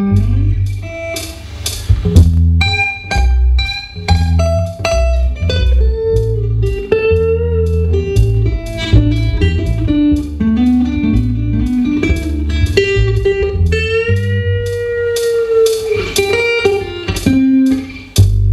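Steel-string acoustic guitar played solo in a fingerpicked blues style, a steady repeating bass line under picked treble notes. Several notes are bent in pitch, with a long bent note about two-thirds of the way through.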